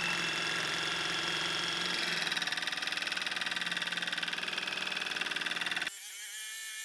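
Jigsaw running steadily as it cuts through a black-undercoated plywood panel. About six seconds in, the sound turns abruptly thinner, with a wavering whine.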